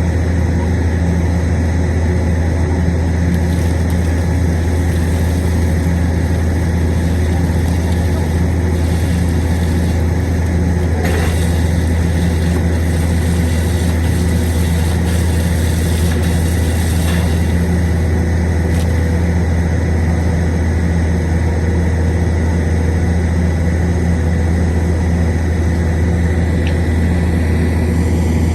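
Engine of a heavy machine running steadily with a constant low drone, the pitch and level unchanging throughout; a single short click about eleven seconds in.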